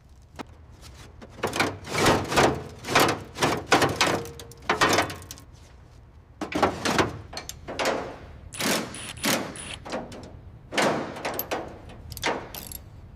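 A run of short, harsh scraping strokes, each about half a second long, coming in three bursts, like hand work rubbing or scraping at a surface.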